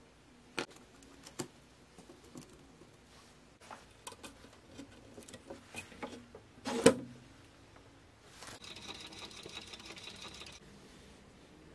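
Small metal watchmaking tools clicking and tapping against watch parts on the bench, with a louder knock about seven seconds in. Near the end comes a rapid buzzing rattle lasting about two seconds.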